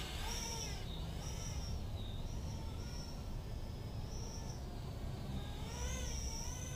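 Three-inch toothpick FPV quadcopter flying, its brushless motors and propellers giving a high whine that rises and falls in pitch with the throttle.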